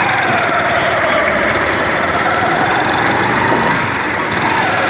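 Motor vehicle engine running steadily at idle, with a whine that wavers gently in pitch.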